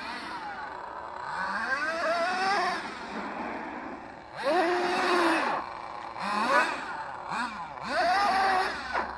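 Kyosho Giga Crusher RC monster truck's twin GXR28 nitro engines being throttled in short bursts, the pitch rising and falling with each, about five times.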